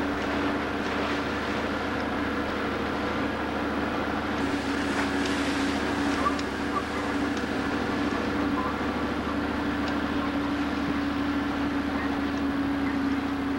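Boat's engine running steadily under way, a constant droning hum over the wash of water and wind.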